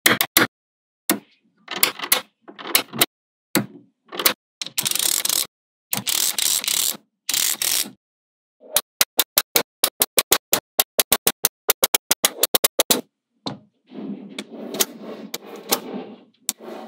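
Small magnetic balls clicking and snapping together, with short rattling bursts as clumps of balls are handled. Through the middle comes a quick run of sharp clicks, about five a second, and near the end a longer rough scraping rustle as the magnet-ball pieces are slid and pressed together.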